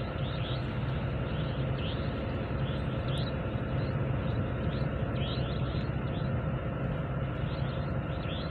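Steady drone of a boat engine, low and unchanging, with faint short high chirps now and then.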